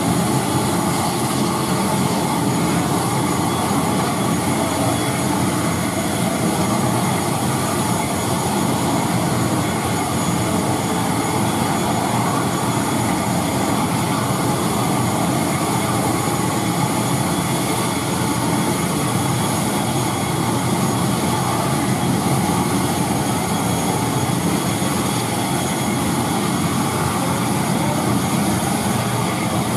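Pratt & Whitney PW127 turboprop engine of a parked ATR 72 running steadily on the ground, a constant drone with a thin high whine over it.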